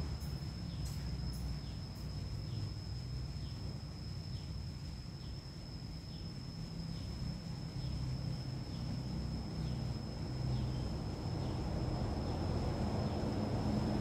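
Cicadas singing: a steady high-pitched drone, with a faint short falling note repeating about every half second. A low rumble runs underneath and grows louder near the end.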